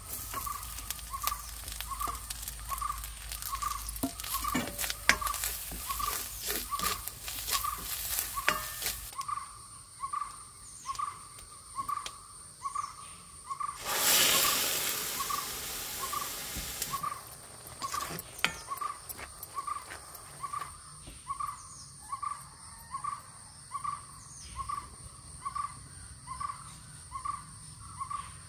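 Food crackling and being stirred in a hot wok over a wood fire for the first several seconds. About 14 s in, a loud sizzle lasts a few seconds as boiled horse gram is tipped into a hot iron wok. Throughout, a bird repeats a single short note about once a second over a steady thin high whine.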